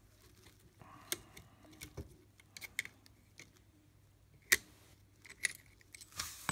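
Screwdriver prying the circlip off the clutch shaft of a small ATV engine: scattered light metal clicks and scrapes, with a sharper click about four and a half seconds in.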